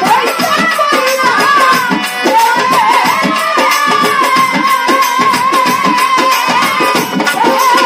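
Live Bengali folk music: a long, wavering melody line held over a steady drone and a hand-drum beat, with a woman singing at the microphone.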